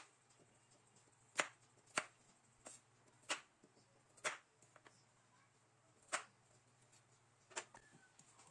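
Chef's knife slicing through a carrot and knocking down on a wooden cutting board: about seven sharp knocks, unevenly spaced roughly a second apart.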